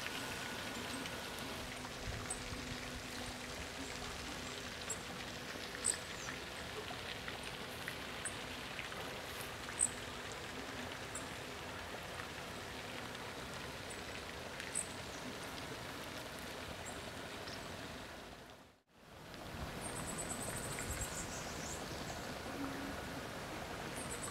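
Small waves lapping at the lake's edge over a steady outdoor hiss, with a few faint high ticks. The sound cuts out briefly about three-quarters of the way through, and afterwards a high, rapid trill sounds twice.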